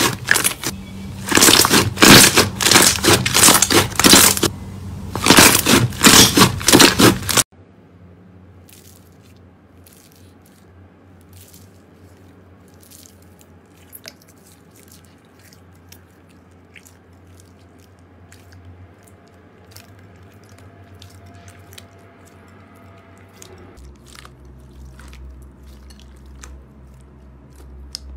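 Slime squeezed and kneaded by hand, with loud crackling bursts for the first seven seconds or so. It then cuts to a much quieter run of scattered small pops and clicks as fingers work a clear slime full of foam beads.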